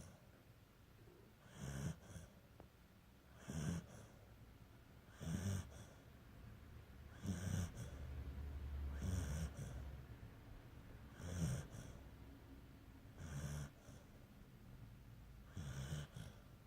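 Snoring in a steady rhythm, about one breath every two seconds, each a low rumble with a hiss of air.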